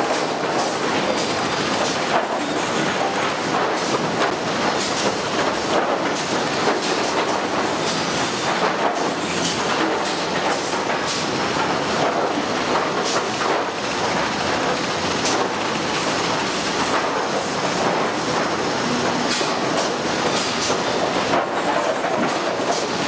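Sawmill lumber stacker with dual forks running: a continuous clatter of machinery with frequent sharp knocks as boards are moved and laid into a layer.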